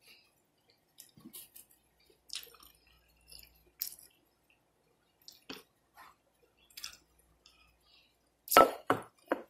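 Close-miked eating sounds: scattered soft chewing and lip smacks, then three loud wet smacks near the end as a finger is licked clean.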